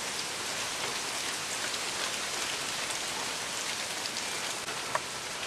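Steady rain falling, an even hiss with no let-up, with a single short tap about five seconds in.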